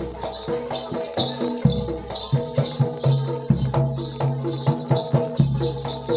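Jaranan Dor ensemble music: repeating pitched percussion notes in a steady rhythm, over rattles or jingles and low held tones that come and go.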